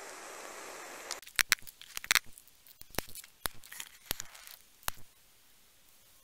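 A utility lighter's flame hisses steadily, then cuts off about a second in. Then comes an irregular run of sharp little pops and cracks over the next few seconds: bang snaps and toy caps packed in a coffee filter going off as it burns.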